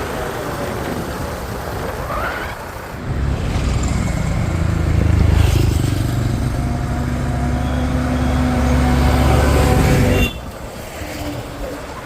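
Heavy diesel machine engine running close, with a strong steady low drone that comes in sharply about three seconds in and drops away abruptly about ten seconds in.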